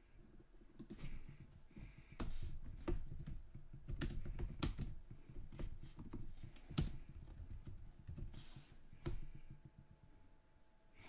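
Irregular typing and clicking on a computer keyboard.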